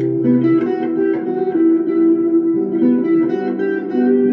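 Archtop hollow-body electric guitar played clean, a run of picked single notes that ring into one another.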